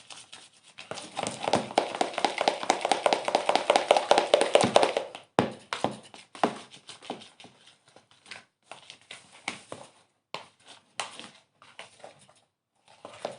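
A sticky glue and shaving-cream slime mixture being stirred in a bowl: a fast run of wet clicking and squelching for about four seconds, then scattered separate taps and clicks.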